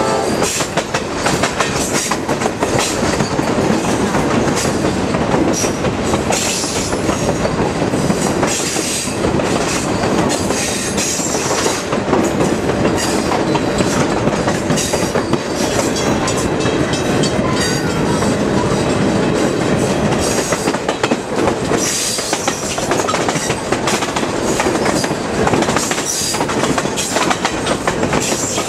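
Passenger train running along the track: steady wheel-and-rail noise with the rhythmic clickety-clack of wheels over rail joints and frequent sharp clicks.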